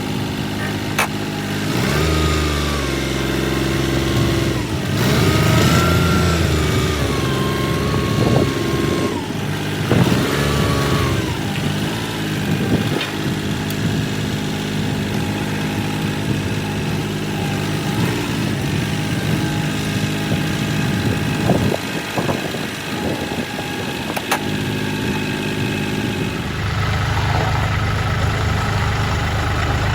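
Kioti CK3510SE compact tractor's diesel engine running and changing speed while working, with a whine that rises and falls several times in the first twelve seconds. Near the end the engine settles into a steadier, deeper run.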